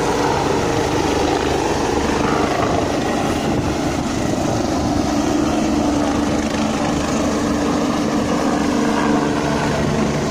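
Rescue helicopter's rotor and turbine engine running loudly as it climbs away, a steady fast rotor beat under a whine.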